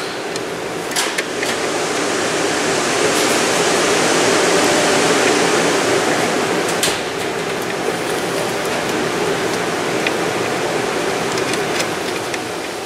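Steady rushing noise of workshop background, a little louder in the middle, with a few sharp clicks as parts are handled.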